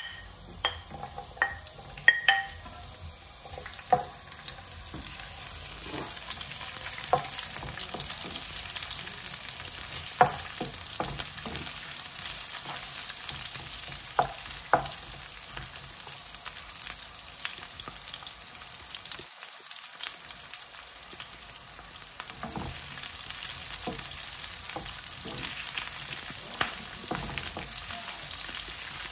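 Chunks of onion and red pepper sizzling in hot oil in a non-stick frying pan, stirred with a wooden spatula that knocks sharply against the pan now and then. The sizzle grows louder a few seconds in.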